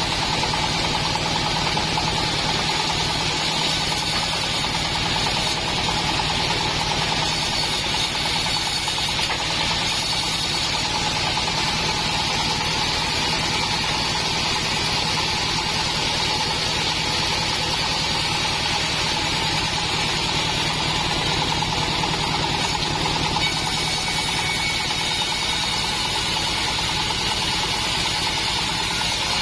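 Assembled bandsaw mill running steadily, a constant machine hum with a high hiss over it.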